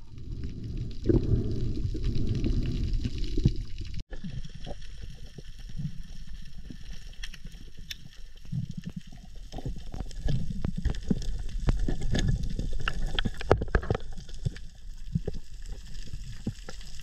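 Underwater ambience picked up by a camera in its housing: a low rumble of moving water with many sharp, scattered clicks and crackles. The sound drops out for an instant about four seconds in.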